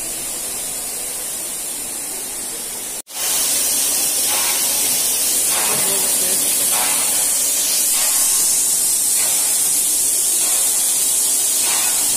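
Steady hiss of steam from a standing steam locomotive, cutting out for an instant about three seconds in and coming back louder.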